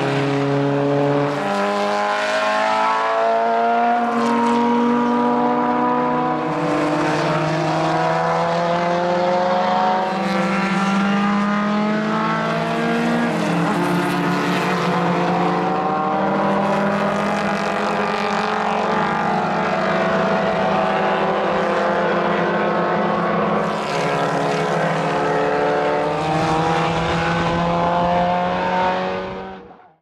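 Historic single-seater formula racing cars passing one after another under power, several engine notes overlapping and rising and falling in pitch as they accelerate. The sound fades out near the end.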